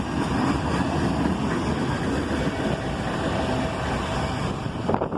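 Freight train cars rolling past on the rails: a steady rumble and clatter of steel wheels on track, with a sharper clank near the end.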